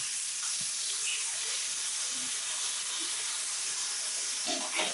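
Beef burger patties sizzling in a frying pan, a steady hiss.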